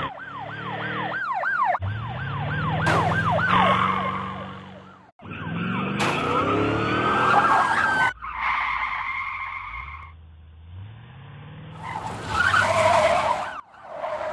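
Car-chase sound effects: a police siren yelping in fast sweeps, about three a second, over a car engine revving up. The siren stops about three seconds in; engines keep revving and tyres screech through the rest.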